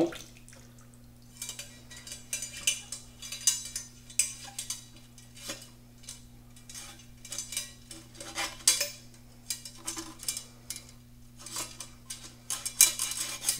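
Coiled-wire snake brush being worked through a trumpet's bell and bend, scraping and clicking against the brass tubing in irregular spells of strokes. A steady low hum runs underneath.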